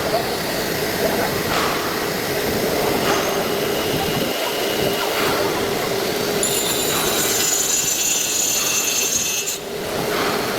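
CNC router cutting a wood panel: steady machining noise, with a high whine from the spindle joining about two-thirds of the way in.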